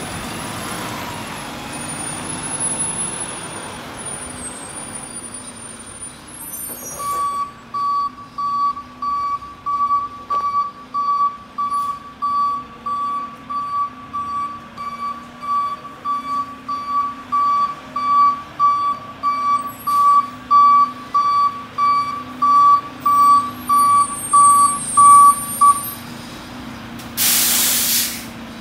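Mack LR garbage truck's reverse alarm beeping steadily, about one and a half beeps a second, over its running engine as it backs up. The beeping stops, and a second later there is a short, loud hiss of air, typical of the air brakes being set.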